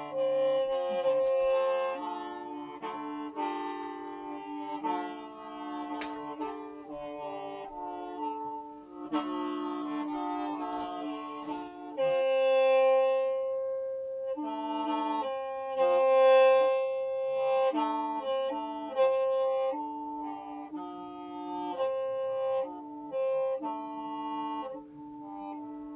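Hmong qeej, a free-reed bamboo mouth organ, being played: several reed pipes sound together in held chords, and the notes shift in steps every second or so.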